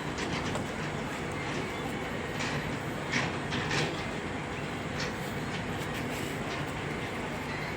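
Train at a railway station: a steady rumble with a few short, sharp metallic clanks.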